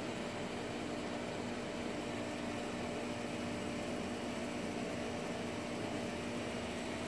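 Steady hiss with a low, even hum and a few constant tones underneath, like a fan or small machine running; nothing starts or stops.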